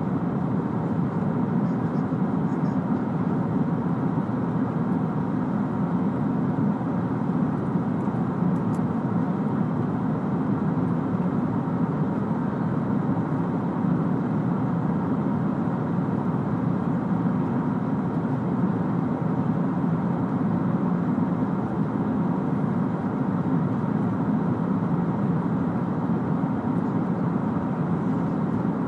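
Steady cabin noise of a Boeing 777-300ER in flight: a constant low rumbling hiss of airflow and its GE90 engines, heard from inside the passenger cabin.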